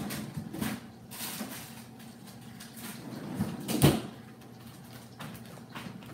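Freezer door opened and shut with a few knocks and bumps, the loudest thump a little under four seconds in.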